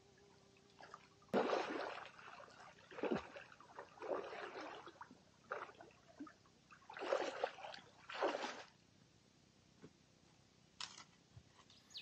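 Canoe paddle strokes in lake water: a splash and slosh with each stroke, coming unevenly every second or two.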